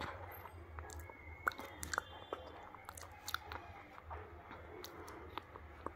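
Close-up mouth chewing of hard, crunchy slate pencil pieces: irregular sharp crunches and small clicks, the loudest about one and a half seconds in.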